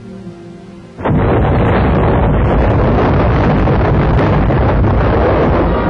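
Soft orchestral music, then about a second in a sudden loud boom opens a steady, dense rumble of battle sounds, gunfire and explosions, on the film's soundtrack.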